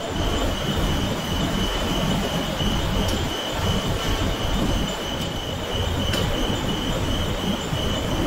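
Tannery machinery running: a steady mechanical noise with a constant high-pitched whine over it.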